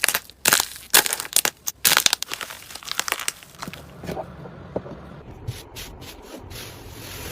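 Slime being pressed and squeezed by hand, with a dense run of crunchy crackles for about the first half, then softer squishing with only a few clicks.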